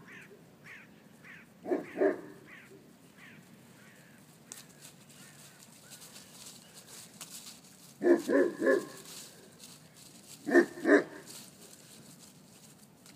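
Pyrenean mastiff puppies barking in rough play: a pair of barks about two seconds in, a quick run of four about eight seconds in, and another pair about eleven seconds in.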